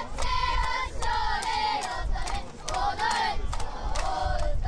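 Stadium crowd at a youth football match, shouting and cheering in high, wavering voices, with sharp hits at uneven intervals.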